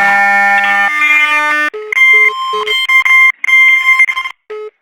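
Loud electronic tones over a drive-thru intercom: a steady buzzing tone that drops in pitch about a second in, then a choppy run of beeps that stops and starts, ending in a few short beeps.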